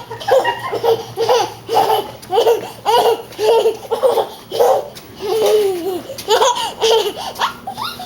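A baby girl laughing hard in repeated high-pitched belly laughs, about two bursts a second, stopping shortly before the end.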